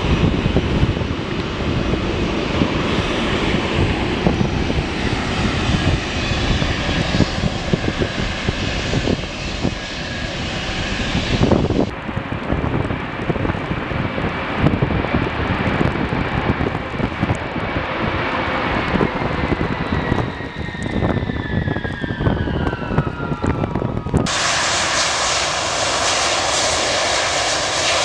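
Jet airliner engines, changing abruptly twice: first a dense rumbling roar; from about 12 seconds in, an Ilyushin Il-76's four jet engines on a wet runway, with a whine that falls in pitch over several seconds; from about 24 seconds in, a Boeing 727's tail-mounted jet engines as it rolls down the runway, a steady roar with a strong hiss.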